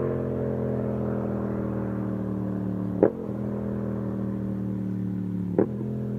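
Yamaha FZ-07's parallel-twin engine breathing through a Yoshimura aftermarket exhaust, running steadily with its note slowly falling. Two short sharp cracks cut in, about three seconds and five and a half seconds in.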